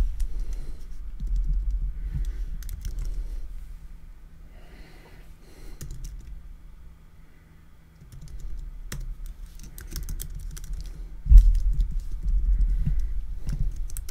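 Fingers typing on an iPhone's touchscreen keyboard: irregular runs of light taps and clicks with dull low bumps, pausing briefly about halfway. One heavier thump about eleven seconds in.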